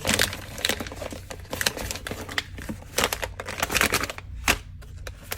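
A box of microwave popcorn being opened by hand: irregular crinkling and sharp clicking of cardboard and plastic packaging.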